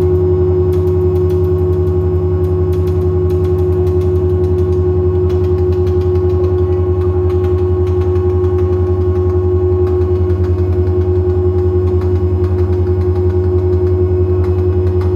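Droning electronic music: a deep, evenly pulsing bass hum under several steady, sustained tones, unchanging throughout.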